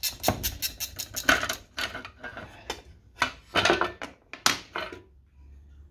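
Quick runs of small metallic clicks and clinks as parts are worked off the cylinder head of a Honda-clone four-stroke engine. The clicks come in two runs, the second starting about three seconds in.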